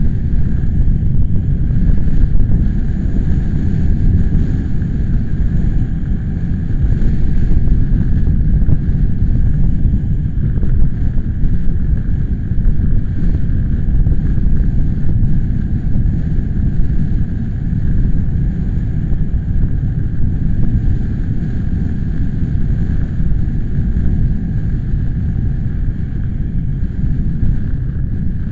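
Wind buffeting the microphone: a loud, steady low rumble that swells and eases a little, with a faint hiss above it.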